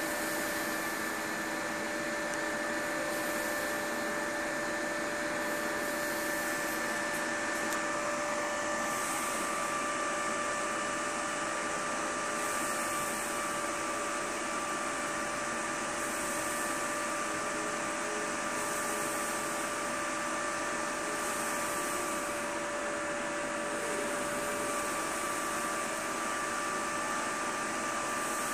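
Steady rushing hiss with several constant whining tones: cooling fans running on an open benchmark rig while liquid nitrogen is poured into the graphics card's cold pot and boils off.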